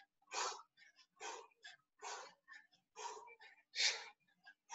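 A person breathing hard in rhythm from the exertion of jumping jack presses: a strong exhale about once a second, with softer breaths between.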